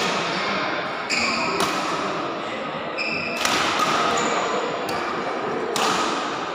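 Badminton rally in a large hall: sharp racket strikes on the shuttlecock about a second apart, with short high squeaks of shoes on the court floor, over a steady murmur of the hall.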